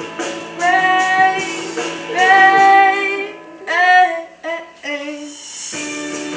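A sung pop ballad with guitar accompaniment: the singer holds several long notes in turn.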